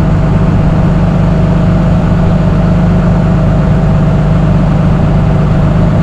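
CAT 329E excavator's diesel engine running steadily, a constant low drone with a thin steady higher tone above it.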